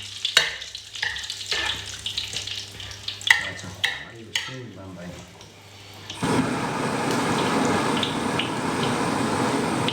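A few light knocks and clicks of kitchen utensils, then about six seconds in a steady sizzling starts suddenly and holds: food frying in hot melted lard and beef tallow.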